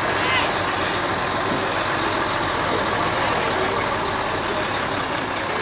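Diesel engine of a Mack truck running steadily close by, with a short high squeak about a quarter second in.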